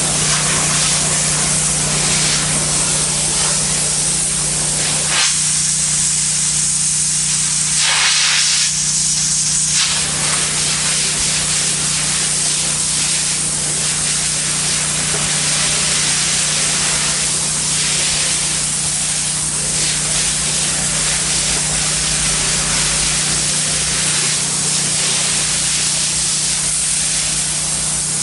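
Pressure washer spraying water onto ceramic tile at low pressure: a steady, loud hiss of the water jet over a constant low hum from the machine. About five seconds in, the spray turns sharper and brighter for a few seconds before settling back.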